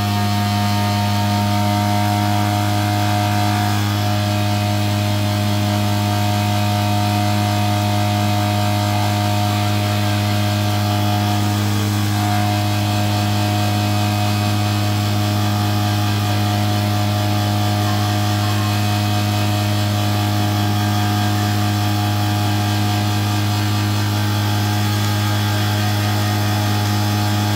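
Cotton candy machine running flat out with no dimmer or speed control, powered straight from a battery charger, giving a loud, steady electric hum with no change in pitch.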